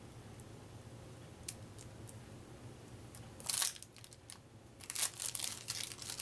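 Plastic wrapping on a pack of cards crinkling as it is torn open: a short crackle about three and a half seconds in, then a longer, louder stretch of crinkling near the end.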